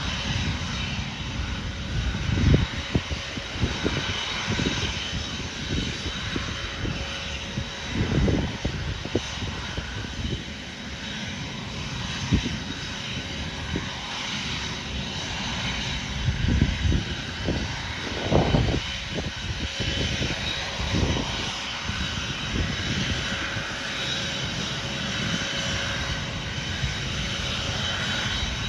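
Dassault Falcon 900 trijet's turbofans running at low power as it taxis, a steady distant whine and hiss. Irregular gusts of wind rumble on the microphone.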